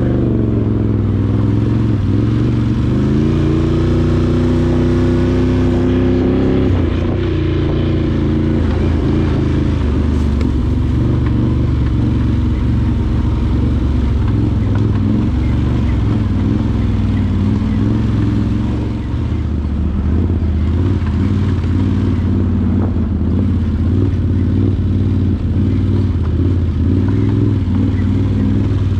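Can-Am Outlander 850 XT ATV's V-twin engine running under way. Its pitch climbs about three seconds in, holds briefly, drops back near seven seconds, and then rises and falls unevenly as the throttle changes.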